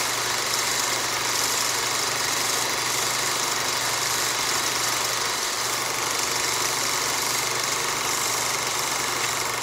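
Old film projector running: a steady mechanical whir with a low hum underneath that drops out briefly about halfway through.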